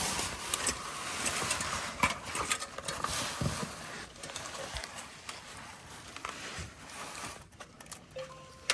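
Scattered light clicks and knocks of hand tools and metal parts being handled during work on the old brake line, over a hiss that fades after about four seconds.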